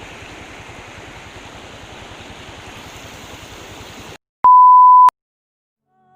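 A steady rushing noise for about four seconds, cut off abruptly, then after a brief silence one loud, steady electronic beep lasting well under a second, a single pure tone edited into the sound track.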